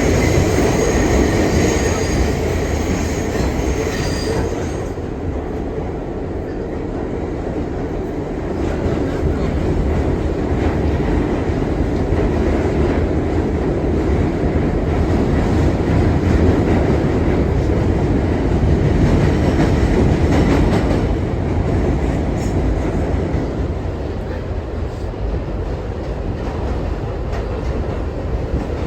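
R62 subway train running at speed, with a steady heavy rumble of wheels on rail and clatter over the track. The wheels squeal with a high whine for the first few seconds before the steady running noise takes over.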